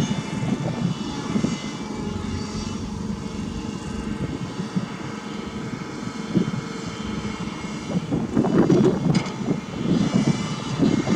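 Heavy diesel engines of earthmoving machinery running, growing louder and rougher for a moment about eight seconds in.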